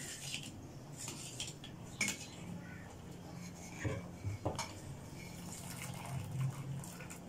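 Metal skimmer clinking and scraping against a stainless steel cooking pot as boiled cabbage leaves are scooped out of the water, a handful of sharp clinks spread through the stretch.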